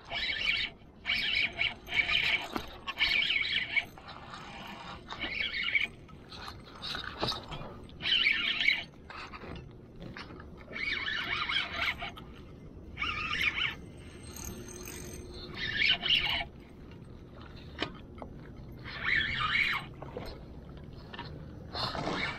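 Spinning reel cranked in short spurts while retrieving a lure: a whirring, scraping sound of about a second or less, repeated every second or so, then with longer pauses between spurts.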